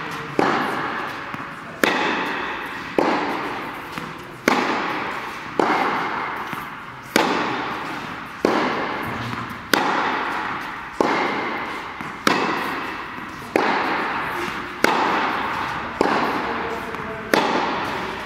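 Tennis ball being hit back and forth in a rally: a sharp pop of strings on ball about every second and a quarter, each ringing out in a long echo around the indoor hall.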